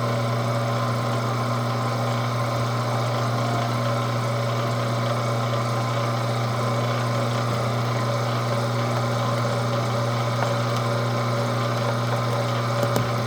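Weston No. 32 commercial-grade electric meat grinder's 1.5-horsepower motor running with a steady hum while grinding raw beef liver.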